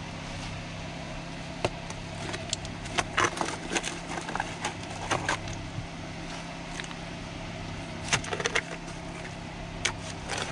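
Spade digging wet clay out of a buried rusted barrel: irregular scrapes and crunches as the blade bites in, in clusters a second or two apart, over a steady low hum.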